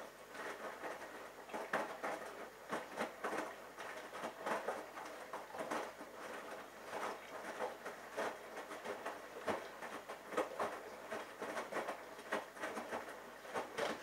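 Bosch Logixx WAS32461 washing machine drum turning a load of laundry in rinse water during the final rinse, with irregular splashing and slapping every fraction of a second as the clothes tumble.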